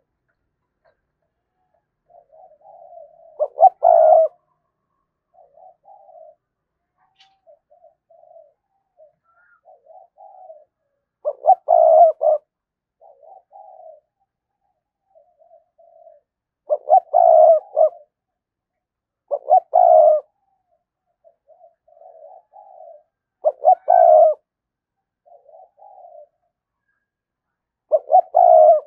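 Decoy spotted dove cooing: a loud, stuttered coo phrase every four or five seconds, with softer short coos in between.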